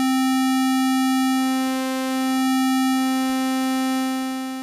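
A single held synthesizer note from the Unfiltered Audio LION plugin's Forms oscillator, its waveform being swept back and forth between sawtooth and square so the tone's colour keeps shifting. The note fades out near the end.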